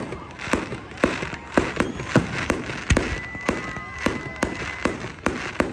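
Fireworks display going off in a rapid, steady series of sharp bangs, about two a second. A faint thin whistle sounds in the middle.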